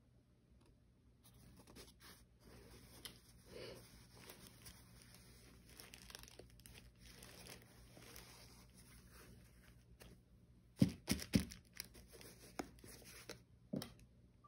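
Packaging rustling and tearing as a parcel is opened, then a few sharp knocks in the last few seconds.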